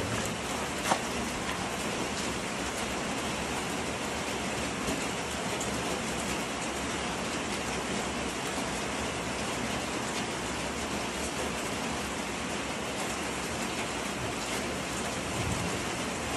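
Steady rain falling, an even hiss with no let-up, and one sharp click about a second in.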